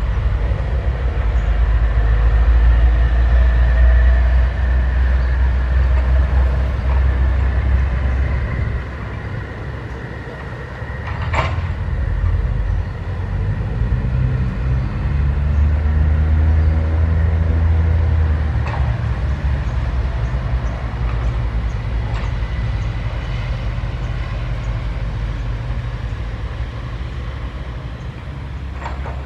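SANY 135F hydraulic excavator's diesel engine running under digging load, easing off for a few seconds just before the middle and then revving back up. A sharp metallic knock sounds near the middle and a fainter one a little later.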